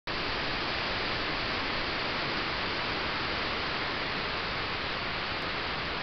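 Steady, even hiss from a trail camera's microphone, with no distinct animal or other sounds in it.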